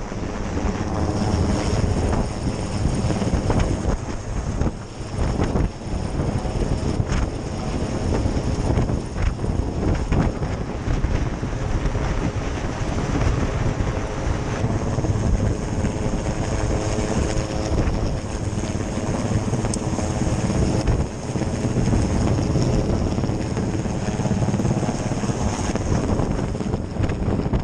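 Rescue helicopter running steadily, its rotor and engine noise mixed with wind on the microphone.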